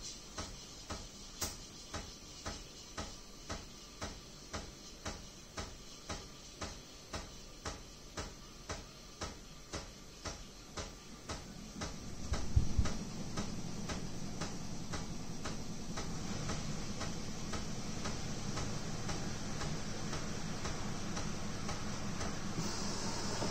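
Sage Barista Express espresso machine ticking about twice a second, then after a short thud about halfway its pump settles into a steady hum.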